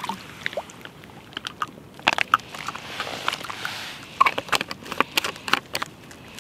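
Water being squeezed from a soft plastic pouch through a Sawyer Squeeze filter into a plastic bottle. The pouch crinkles in irregular clicks and crackles, with a soft trickle of filtered water near the middle.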